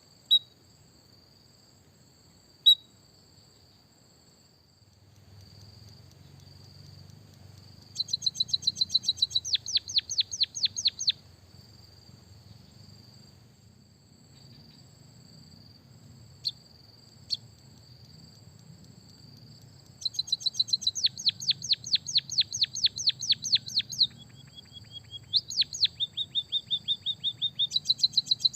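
Small songbird singing fast rolling trills of sharp, down-sweeping chirps, about ten a second, in several runs of a few seconds each: the canary-style roll ('isian kenari') of a white-headed munia. A faint steady high-pitched whine runs underneath.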